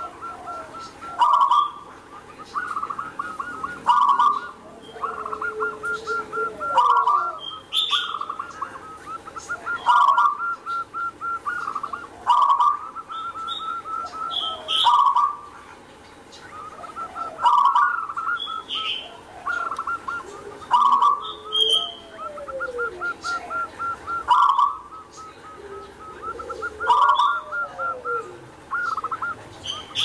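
Zebra dove (perkutut) singing its cooing song. A loud coo phrase comes every two to three seconds, with fast stuttering runs of short notes between the phrases.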